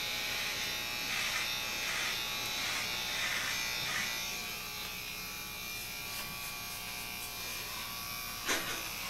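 Electric hair clippers running with a steady buzz, shaving a head down close to the scalp. A single sharp click near the end.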